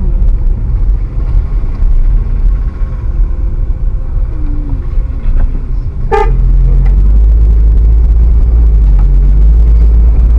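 A vehicle running with a heavy low rumble, and a short horn toot about six seconds in. After the toot the rumble becomes louder and steadier.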